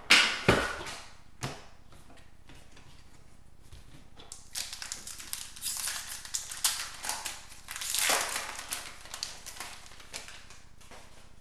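Crinkling of a trading-card pack wrapper and rustling of cards being handled, in short bursts right at the start and again in a longer crackly stretch from about four and a half to nine seconds in.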